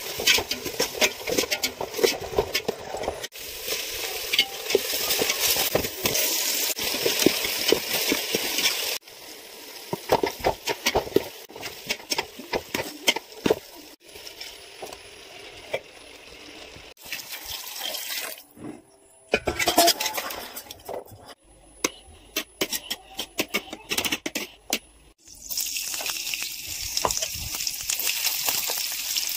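Sliced onions frying in hot oil, sizzling, while a spoon stirs and scrapes them in the pot with quick clicks. The sizzle is loud at first, drops to quieter stirring and taps in the middle after several abrupt cuts, and comes back near the end.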